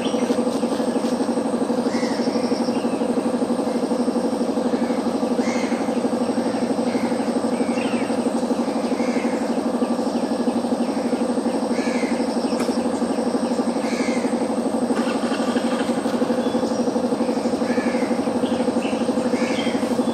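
A steady low hum with a fast, even pulse, with birds chirping over it every second or so.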